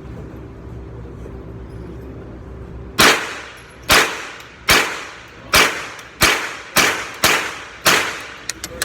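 Smith & Wesson M&P .22 rifle fired eight times in quick semi-automatic succession, each sharp crack trailing off in an echo, after about three seconds of a steady low hum.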